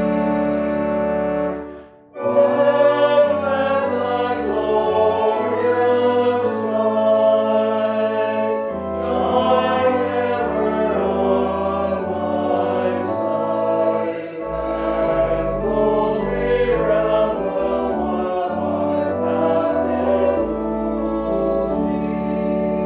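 Choral hymn music: voices singing over sustained accompanying chords with a moving bass line. It breaks off briefly about two seconds in, then a new phrase begins.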